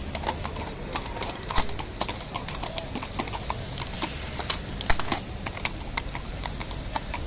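Several horses walking on a paved street, their hooves clip-clopping in an uneven, overlapping run of sharp knocks, several a second, over a low hum of city traffic.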